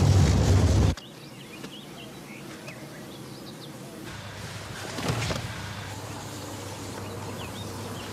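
A loud rush of a train running along the track cuts off abruptly about a second in. Quiet outdoor ambience follows, with faint bird chirps and a low rumble that comes in about four seconds in and swells briefly near five seconds.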